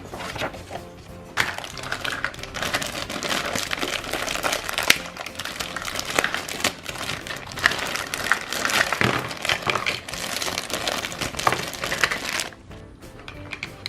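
Toy packaging crinkling and rustling as it is handled, full of small clicks and crackles, over background music; the crinkling stops about twelve seconds in.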